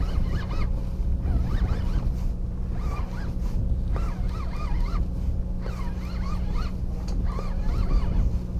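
Boat engine running with a steady drone, and a fishing reel being cranked.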